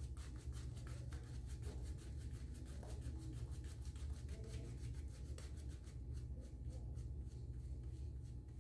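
Boar-bristle shaving brush worked over a lathered face: a faint, quick, even rubbing of bristles through shaving-soap lather, over a low steady hum.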